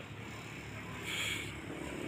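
Steady hum of distant road traffic, with a brief hiss about a second in.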